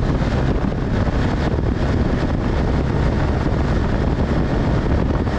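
BMW GS motorcycle riding at a steady road speed: steady wind noise over the bike-mounted camera's microphone, with the engine's low drone beneath it.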